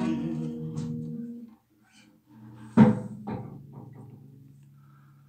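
Acoustic guitar closing the song: the last chord rings and fades out. After a short silence a sharp struck chord, then a lighter one, ring on and slowly die away.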